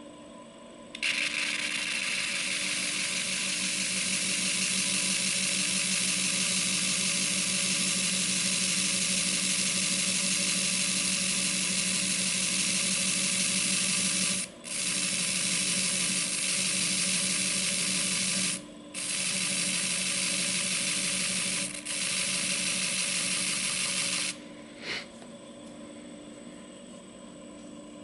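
Pipe stem being ground against a slow-turning abrasive wheel: a loud, even abrasive hiss over the machine's steady hum, broken three times as the piece is lifted briefly off, then stopping about three quarters of the way through while the wheel keeps turning.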